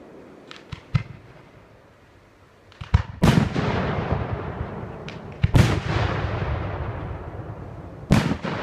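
Aerial firework shells bursting: a few small pops about a second in, then three loud bangs about two and a half seconds apart, each followed by a long fading rumble.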